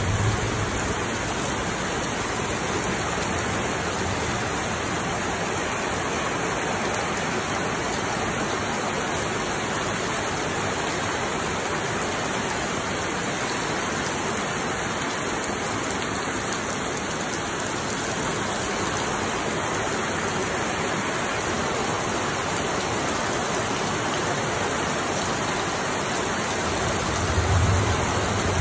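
Heavy tropical rain falling steadily, a constant even hiss with no break.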